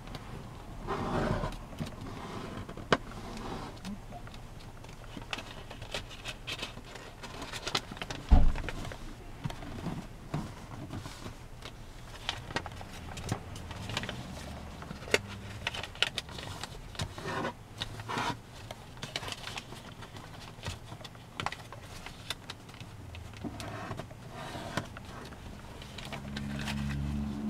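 Hands folding and creasing a sheet of origami paper: crisp rustles and scrapes as fingers run along the folds and unfold the pleats. A single sharp thump on the table about eight seconds in, and a low steady hum comes in near the end.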